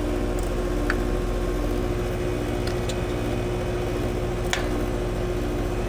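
Air-conditioning equipment running: a steady mechanical hum with a held drone, and three faint clicks spread through it.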